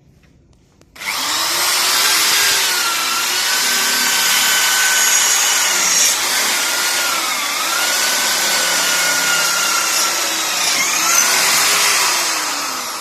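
Electric drill in a homemade drill stand boring a hole through a 40×40 square tube. The motor starts about a second in and runs steadily, its pitch dipping a few times as the bit bites, then winds down near the end.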